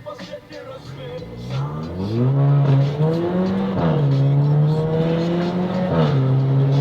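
Volkswagen Golf Mk7 engine revving up hard, rising in pitch over about a second, then held at high revs with two brief drops in pitch.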